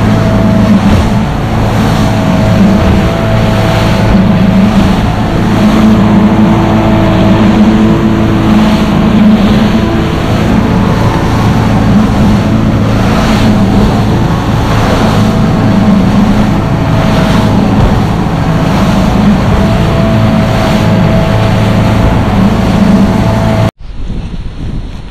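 Small fishing boat running at speed across choppy water: a steady engine hum under the rush of water, the hull slapping through the waves every second or so, and wind buffeting the microphone. Near the end it cuts off abruptly to a much quieter wind.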